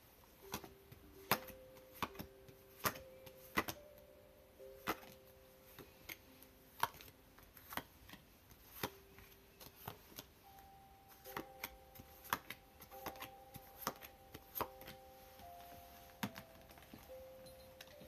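Tarot cards being dealt one at a time into a spread, each drawn from the deck and laid down with a sharp click, irregularly about one or two a second. Faint background music with long held notes plays under it.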